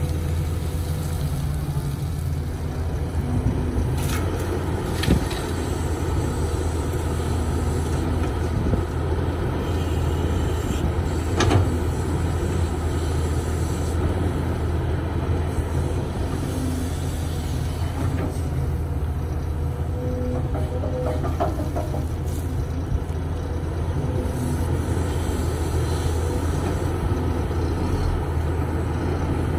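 Matador ME210LC hydraulic excavator's diesel engine running steadily under load as it digs and swings soil over to a dump truck. A few sharp knocks stand out, one about 4 s in, one about 5 s in and the loudest near 11 s.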